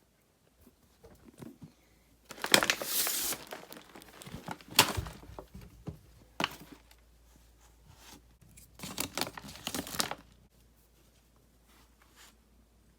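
Packaging being torn and crinkled in several bursts: a long rustle about two and a half seconds in, a sharp crinkle or two, and another burst of crinkling near ten seconds.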